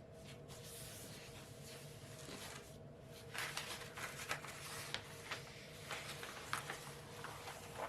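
Faint rustling and light taps of paper and packaging being handled, starting about three seconds in, over a steady low hum.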